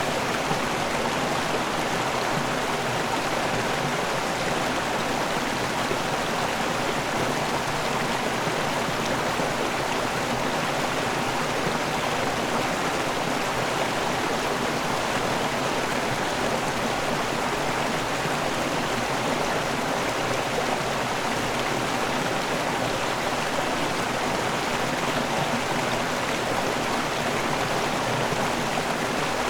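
River water rushing over a waterfall, a steady even rush with no breaks.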